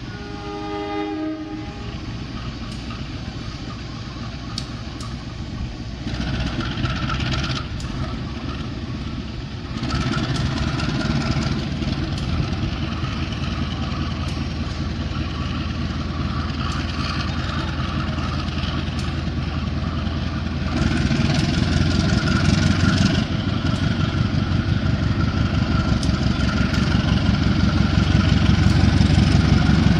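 Diesel locomotive's engine running and drawing nearer, growing louder in steps and loudest near the end.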